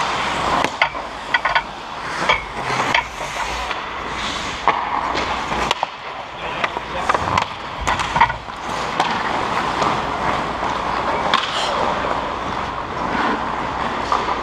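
Ice hockey skate blades scraping and carving on the ice close to the goal net, with sharp clacks of sticks and puck scattered throughout, several in quick succession in the first three seconds and again around eight seconds in.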